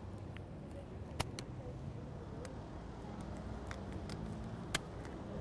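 Street background noise: a steady low hum of traffic, with a few sharp clicks scattered through.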